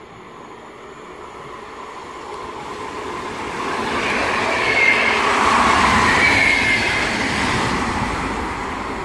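Green-and-white VR electric passenger train running past a station platform, its noise swelling to a peak about five seconds in and then fading as it moves away, with brief high tones near the loudest part.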